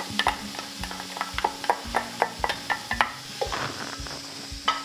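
Finely diced onion sizzling in melted butter in a hot metal saucepan as it is scraped in and stirred with a silicone spatula, with irregular sharp crackles and pops.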